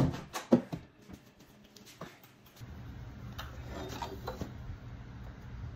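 Two sharp metal strikes about half a second apart, a nail punch being struck to drive a door hinge pin out, followed by a few faint clicks. A low steady hum sets in about halfway through.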